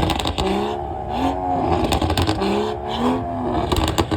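Turbocharged car engine revved in short throttle blips, each rising and falling in pitch. A quick fluttering chatter, turbo flutter, comes near the end.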